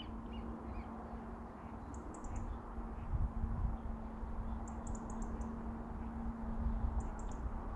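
Quiet outdoor background with a low rumble and a faint steady hum, broken three times by short bursts of rapid, high-pitched ticking, about two and a half seconds apart.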